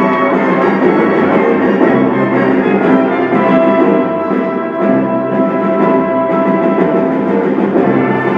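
Live music played through a hall's sound system and recorded from the audience, with held notes over a steady low pulse.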